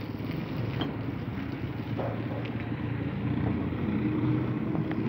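An engine running steadily at a low, even pitch, with a few faint taps over it.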